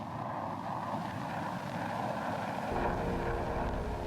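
Military aircraft engine noise: a rushing sound that grows steadily louder, with a low rumble and steady engine tones joining about two-thirds of the way through.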